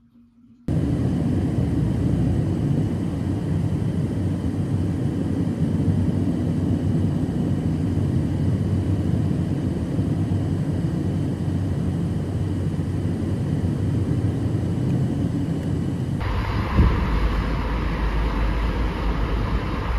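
Steady road and engine noise from inside a car driving on a motorway, starting abruptly under a second in. About 16 seconds in it changes suddenly to heavy wind rushing over the microphone of the moving car.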